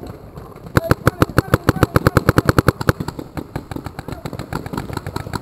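Paintball marker firing a rapid string of shots, several a second, starting about a second in and thinning out in the second half.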